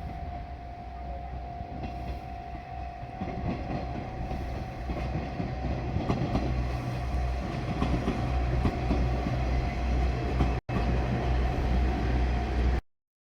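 Diesel railcar train rumbling over a level crossing, its engine and wheel clatter growing louder as it comes through, while the crossing's warning alarm keeps ringing. The sound cuts off abruptly near the end.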